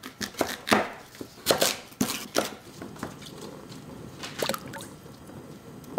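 Knife cutting Korean radish on a wooden cutting board, a few irregular strokes in the first couple of seconds. Then radish pieces are dropped into a pot of water, with small splashes about four and a half seconds in.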